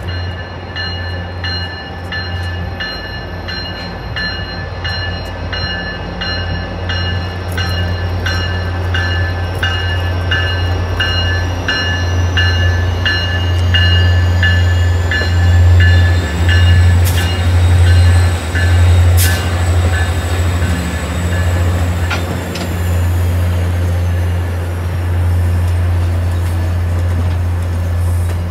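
Passenger train moving through a station: a locomotive bell rings about twice a second for the first dozen seconds over a steady low hum, while a high whine rises and later falls as the train passes close by.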